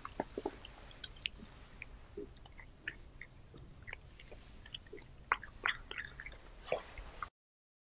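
Cat chewing and biting chunks of raw meat, close-miked: a quick irregular run of small wet clicks and crunches. The sound cuts off suddenly a little after seven seconds.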